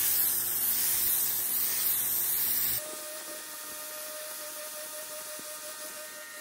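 Titan 140-bar electric pressure washer with an 1800 W universal motor spraying a high-pressure jet onto paving slabs. A loud hiss of the jet runs with the hum of the motor and pump, then drops abruptly about three seconds in to a quieter hiss with a steady whine.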